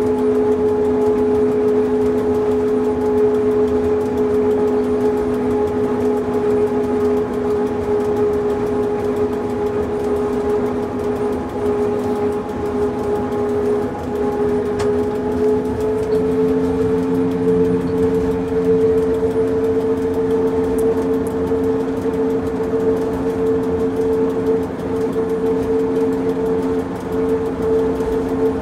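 Electric rack railcar of the Pilatus cog railway running downhill, its motors and cog gearing giving a steady two-note whine over a low rumble of running noise. The whine steps up slightly in pitch about halfway through.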